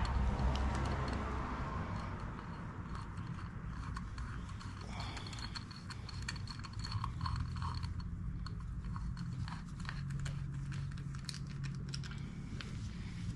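Small, irregular metallic clicks and taps of hand tools and bolts while the oil filter cover is refitted, over a steady low hum.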